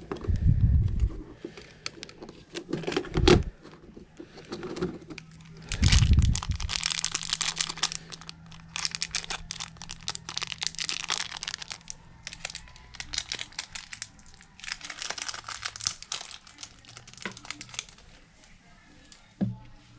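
Crinkling and rustling of something being handled, with three heavy low thumps in the first six seconds, then a long stretch of dense crackling that stops near the end.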